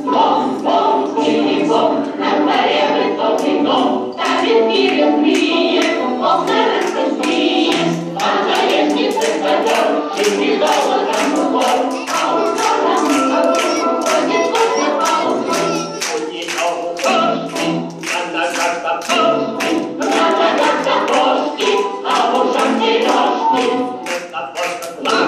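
A song sung by a choir of voices over music with a steady, evenly spaced beat.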